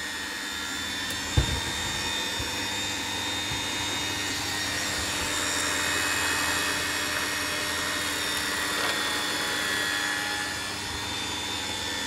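Dirt Devil Platinum 1000 bagged upright vacuum cleaner running steadily on its lowest power setting: a steady motor whine over rushing air, working. One brief knock about a second and a half in.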